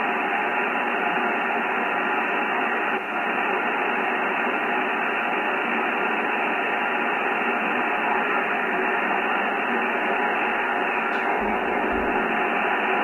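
Kenwood TS-990 HF transceiver receiving upper sideband on the 17 m band: a steady hiss of band noise through its speaker, held within the narrow voice passband, with no station audible.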